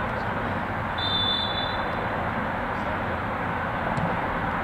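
A single high, steady whistle blast about a second in, lasting about a second, typical of a referee's whistle at a soccer match, over steady outdoor noise with low rumble.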